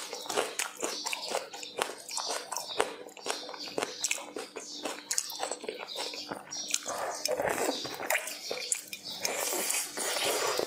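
Close-miked chewing of food, a steady run of wet mouth clicks and smacks, with another bite taken near the end.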